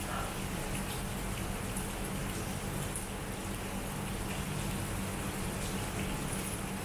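Heavy rain falling steadily on trees and pavement, an even hiss with faint scattered drop ticks and a steady low hum underneath.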